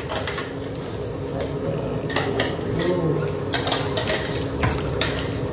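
Cooked yellow spice paste sizzling steadily in a wok, with irregular clinks and knocks as a plastic container and spoon are handled over a pot of broth.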